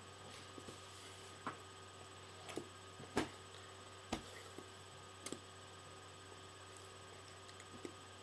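Faint taps and claps of hands striking each other and the body while signing in ASL: a handful of scattered sharp strikes, the sharpest about three seconds in, over a steady electrical hum.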